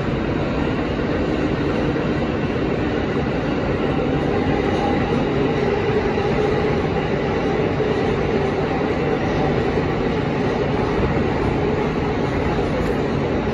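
R160 New York City subway car running at speed through a tunnel, heard from inside the car: a steady rumble of wheels on rails with faint steady tones above it.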